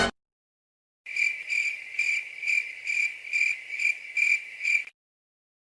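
Cricket chirping in an even rhythm, a little over two chirps a second, for nearly four seconds, starting and stopping abruptly: the stock "awkward silence" crickets meme sound effect.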